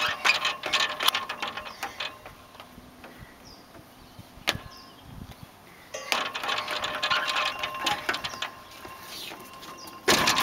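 Small footsteps on a playground's metal-slat bridge, the plates clanking and rattling in two spells with a faint metallic ring. A brief loud rush of noise comes near the end.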